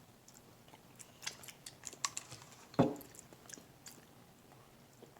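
A person chewing a cookie-dough-filled chocolate candy: soft, clicky mouth sounds, with one louder sound a little before the three-second mark.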